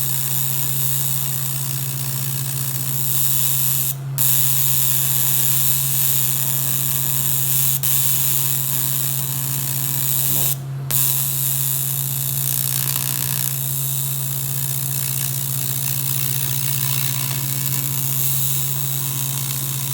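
Electric welding arc sizzling steadily on thin sheet metal over a steady low hum, stopping briefly twice, about four seconds and about ten seconds in.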